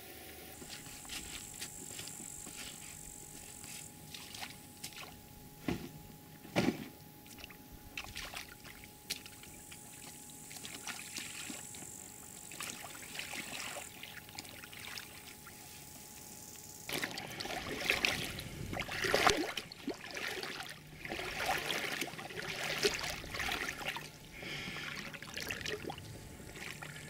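Faint outdoor ambience with scattered light clicks and a thin, high steady hiss that comes and goes. From about two-thirds of the way in, irregular water splashing and sloshing around an inflatable boat.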